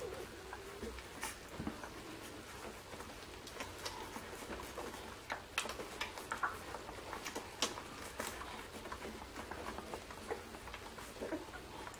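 Nine-day-old Irish Setter puppies nursing: faint, irregular wet suckling clicks and smacks from the litter, with an occasional soft squeak.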